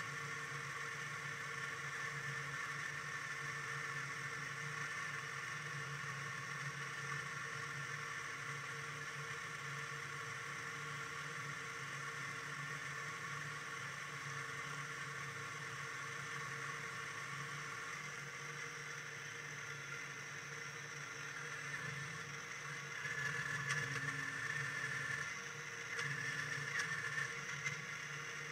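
Motorboat engine running steadily at low speed, a constant hum with several fixed pitches, played back four times fast. It grows louder for a few seconds near the end as the boat noses into its slip.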